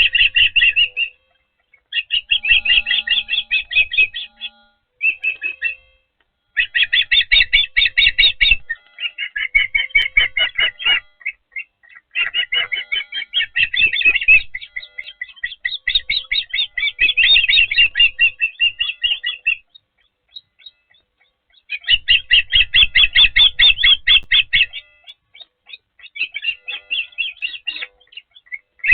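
Osprey calling at the nest: rapid series of high, chirping whistled notes in bouts of one to four seconds, broken by short pauses, again and again.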